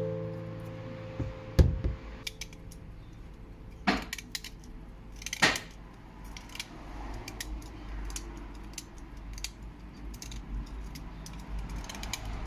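Irregular light metallic clicks and clinks, with a few louder knocks about one and a half, four and five and a half seconds in: metal tools and bayonet parts being handled and set down.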